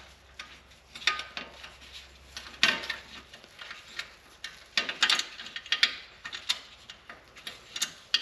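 Light metallic clicks and ticks at irregular intervals from a folding hex key set working a small bolt into a bicycle fender bracket; the bolt is binding, going in cross-threaded and not starting.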